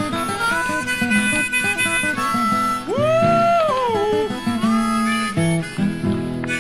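Harmonica music over an acoustic guitar accompaniment. About three seconds in, the harmonica holds one long note that slides up, holds and then bends down.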